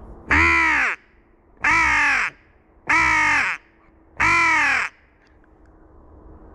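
Crow caller sounding four loud caws, each about half a second long and dropping in pitch at the end, evenly spaced a little over a second apart, calling to lure crows in to the hunter.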